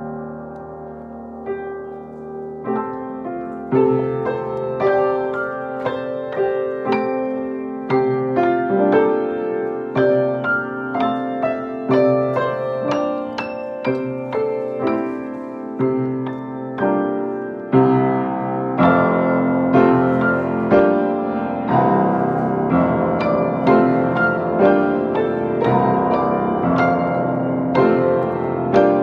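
Grand piano being played, full chords with clear note strikes. It starts softly, grows fuller a few seconds in, and swells louder again a little past halfway.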